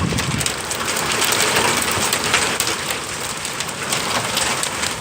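Heavy rain and hail pelting the house in a thunderstorm: a dense steady hiss studded with many sharp ticks of hailstones striking.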